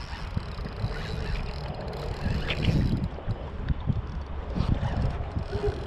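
Wind buffeting the microphone on an open kayak, a gusty low rumble, with scattered irregular knocks and rustles.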